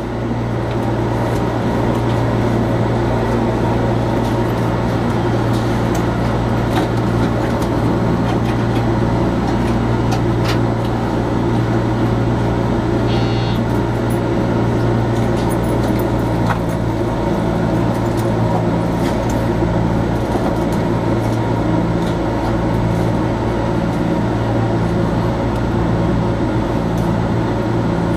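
Steady electrical hum and running noise inside the cab of a JR Kyushu 415 series electric multiple unit, with a brief high beep about halfway through. In the second half one hum tone pulses about once a second as the train starts to move off.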